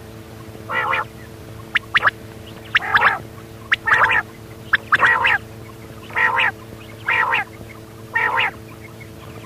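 Quail calling: a series of short, harsh calls about once a second, some led by very brief sharp notes, over a steady low hum.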